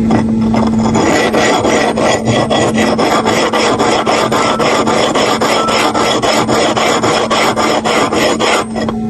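Clipper blade being scraped back and forth over an oiled, gritted sharpening plate: a gritty rasping in quick, regular strokes, several a second, starting about half a second in and stopping near the end.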